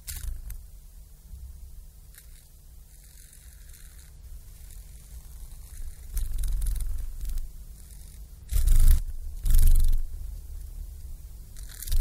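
Dragonfly wings fluttering in short bursts, a papery rustling buzz over a low rumble. Two loud bursts come close together a little after eight seconds, and another starts just before the end.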